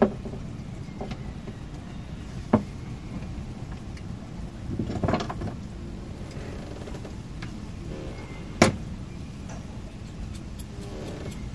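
Sharp knocks and clicks from hands working cables and fittings, one about two and a half seconds in and another near nine seconds, with a short clatter around five seconds, over a steady low hum.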